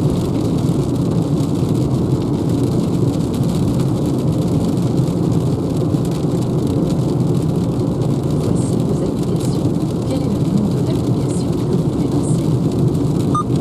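Steady road and tyre noise heard inside a Renault Zoe electric car driving on a wet road in the rain.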